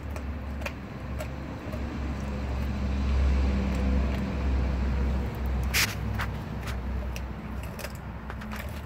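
A dog chewing a frozen raw tilapia: scattered sharp crunches and cracks, the strongest about six seconds in, over a low rumble that swells in the middle.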